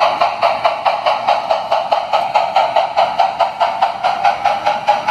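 O scale model Great Northern steam locomotive's sound system chuffing steadily, about four to five exhaust beats a second, as the locomotive runs.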